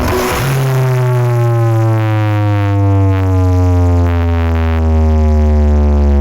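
Large carnival sound system playing a deep electronic bass tone through its subwoofers. The tone starts just after the beginning and slides slowly and steadily downward in pitch for several seconds.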